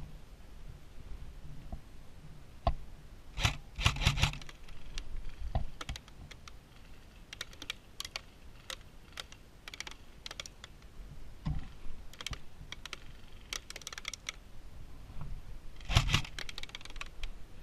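Airsoft guns firing: short rapid bursts of sharp clicks a few seconds in and again near the end, with scattered single shots between.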